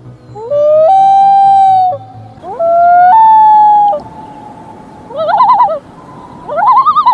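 A bird calling: two long wailing calls that slide up and then hold their pitch, followed by two short quavering, wavering calls.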